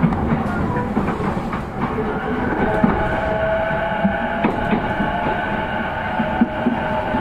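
A JR East E233-0 series electric train heard from inside the car while running between stations: a steady rumble with scattered clicks from the wheels and rails. About two seconds in, a steady whine from the traction motors comes up.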